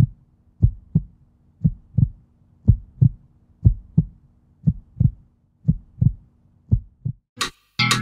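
Heartbeat sound effect: low double thumps, about one pair a second, over a faint steady hum. It ends with a short whoosh about seven seconds in.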